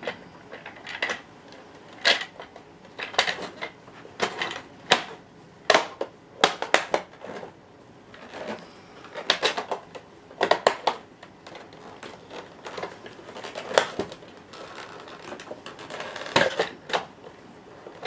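Irregular hard plastic clicks and knocks as the base plate of a Sanyo upright vacuum cleaner is handled and pushed down onto the cleaner's body by hand.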